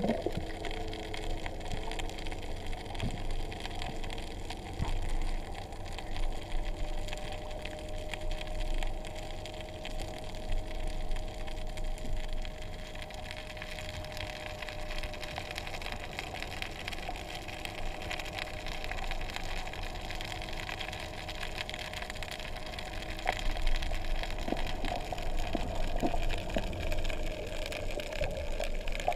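Underwater ambience heard through a camera housing: a muffled water rush with fine crackling throughout, and a faint steady hum through the middle.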